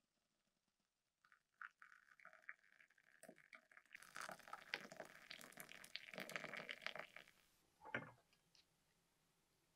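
Faint handling sounds: a few light clicks, then a few seconds of scraping and rustling, ending in a short thump.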